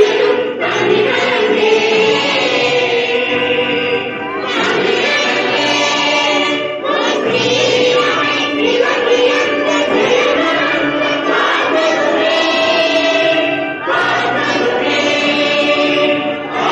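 A large group of schoolchildren singing a prayer song together in unison, in phrases of a few seconds with short breaks between them.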